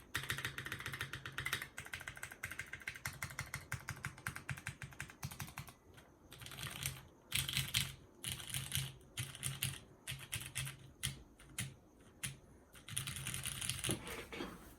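Mechanical keyboard with 205g0-lubed Cherry MX Brown tactile switches on an aluminium plate and GMK keycaps, typed on in fast runs of key clacks. The runs are broken by short pauses, and the typing stops right at the end.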